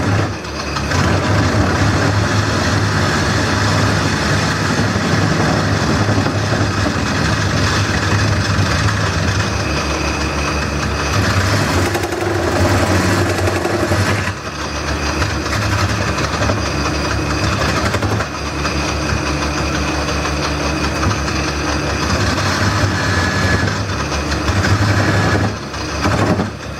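Wood lathe running steadily, its motor humming, while a gouge cuts into the spinning wooden bowl with a continuous rough cutting noise that breaks off briefly a few times as the tool leaves the wood.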